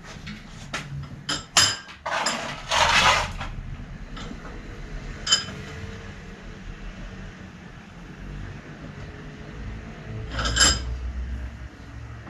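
Metal tools and bicycle parts clinking and rattling as they are handled at a workbench: a few sharp clinks at the start, a longer rattle about two to three seconds in, a single ringing clink near the middle and another ringing rattle near the end.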